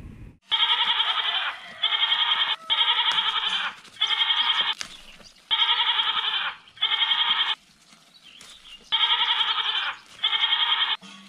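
Goat bleating repeatedly: eight quavering bleats of about a second each, six in quick succession, then a short pause and two more.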